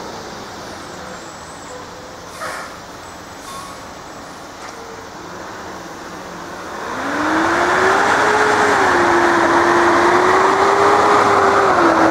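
A heavy vehicle coming close and passing. Its noise swells suddenly about seven seconds in and stays loud, with a droning tone that rises and then wavers up and down.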